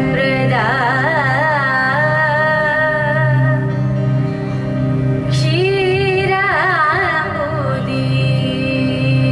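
A young woman singing solo in Carnatic style, her notes bending and shaking in constant ornaments (gamakas), over a steady drone.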